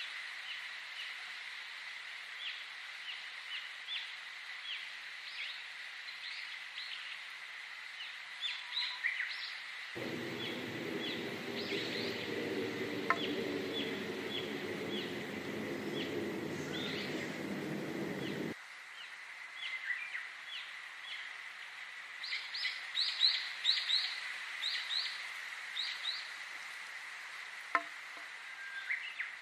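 Many small songbirds chirping with short, quick notes, over a steady high hum. About a third of the way in, a low rumbling noise cuts in abruptly and drops out just as suddenly after about eight seconds.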